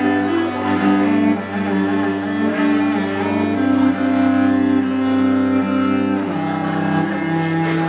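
Cello played with a bow: a slow line of long held notes, changing pitch every second or two, over a steady low drone.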